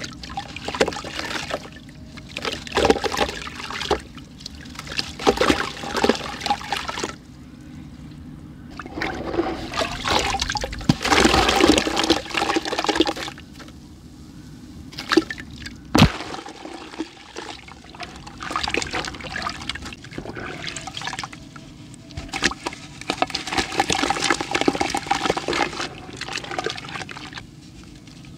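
A crumbly sandy block being dipped into water and crushed by hand: gritty crunching, with grains and water trickling and splashing into a bucket, in bursts a few seconds long with quieter pauses between. A single sharp crack about sixteen seconds in.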